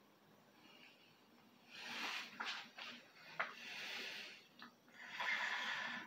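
A man breathing hard and noisily, three long hissing breaths about a second and a half apart, with a sharp click in the middle.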